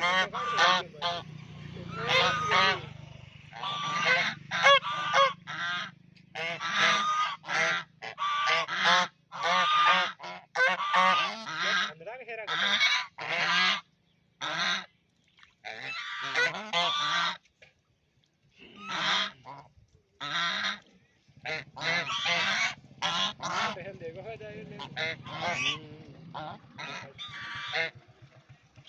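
Waterfowl calling over and over in loud pitched honks, call after call, with a few short pauses.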